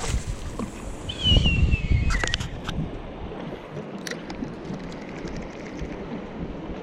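Wind buffeting the microphone on an open boat, strongest about a second in. A short whistle-like squeal falls in pitch over about a second, and a few light clicks follow.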